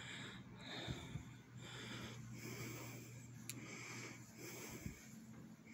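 Faint breathing and handling rustle close to a phone's microphone, with soft irregular puffs of hiss and a few light clicks, over a low steady hum.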